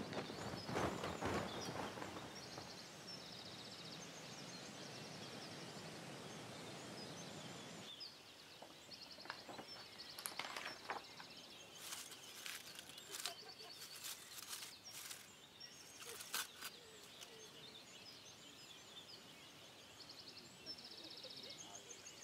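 Faint woodland ambience: a steady rushing hiss for the first eight seconds, then quieter air with a bird's short high trills repeating every few seconds and scattered clicks and cracks in the middle.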